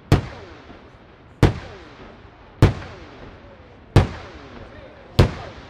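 Aerial firework shells bursting in the sky, five sharp bangs about a second and a quarter apart, each trailing off in an echoing rumble.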